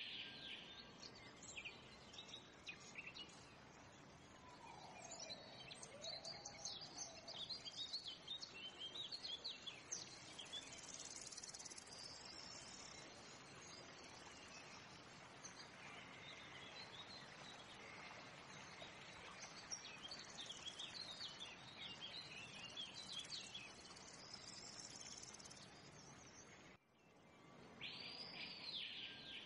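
Faint nature ambience of birds chirping and trilling in scattered short calls over a steady background hiss, with one lower gliding call about five seconds in.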